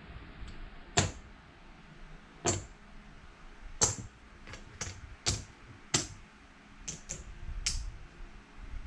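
Casino chips clicking against each other as they are taken from stacks and counted out by hand: about ten sharp clacks at uneven intervals.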